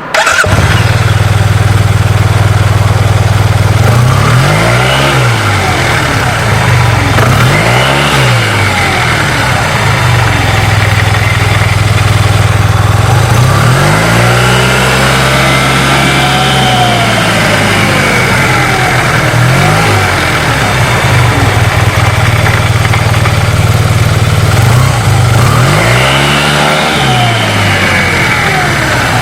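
Yamaha TMAX 530 scooter's parallel-twin engine idling and revved up and back down about five times, once held up for a few seconds in the middle. It is run to show an abnormal noise the owner hears from it.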